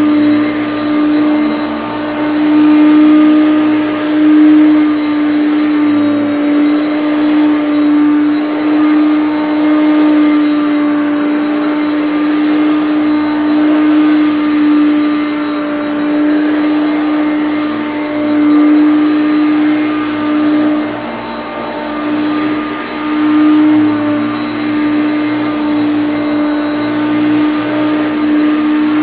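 Hoover Concept One upright vacuum cleaner running continuously with a strong steady motor hum, its loudness swelling and dipping every few seconds.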